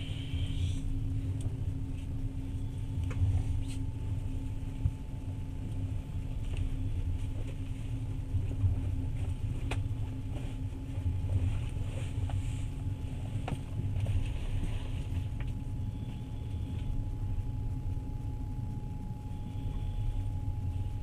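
Passenger train running, heard from inside the carriage: a steady low rumble with a constant hum and a few sharp clicks here and there.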